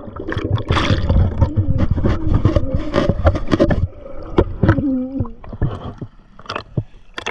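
Water splashing and sloshing close to the microphone, with sharp knocks from handling. It is busiest in the first four seconds, then quieter with scattered knocks.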